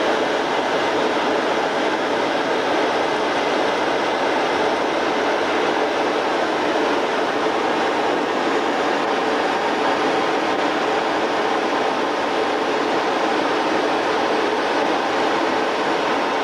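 Steady, unbroken engine and airflow noise of a Yak-40 trijet, heard from inside the aircraft.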